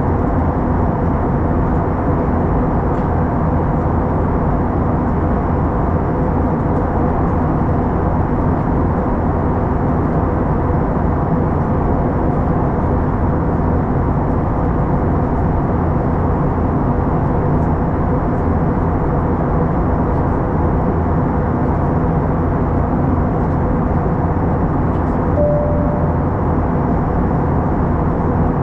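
Steady cabin noise of an Airbus A321-211 in flight, heard from a window seat beside the wing: the low, even roar of its CFM56-5B engines and the airflow, with a faint steady hum running through it.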